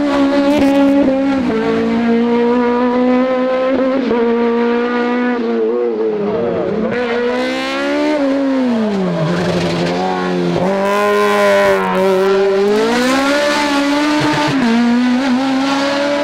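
Hill-climb race car engines at full throttle: the revs climb through gear changes, drop sharply as the car brakes for a bend, then climb again. A Mk1 VW Golf passes first, then an Opel race car comes through.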